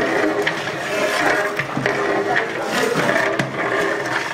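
Long metal ladle stirring curry in a large metal pot, clinking and scraping against the pot at irregular intervals, over a steady background noise.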